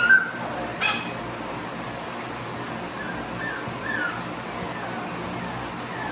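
XL pitbull puppies whining and yelping: a loud high cry at the start, a sharp yelp just under a second in, then a few softer whimpers that slide down in pitch around three to four seconds, over a steady low hum.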